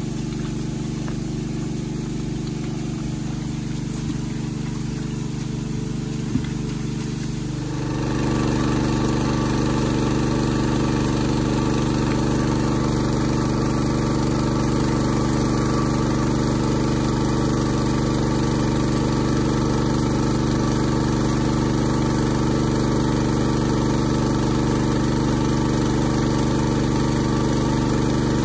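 Small Robin petrol engine running steadily as it drives a water pump for gold sluicing. Its sound grows louder and fuller about eight seconds in.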